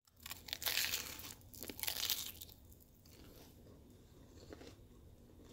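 Crunchy panko-breaded fried jalapeño popper being broken open by hand: two loud crackling crunches of the fried crust, about half a second and two seconds in, then quieter crackling.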